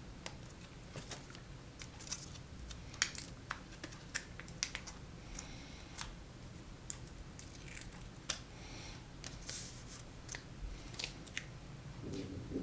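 Light handling of a laptop LCD panel and its plastic protective cover: scattered soft clicks and taps, with a few brief crinkles of plastic.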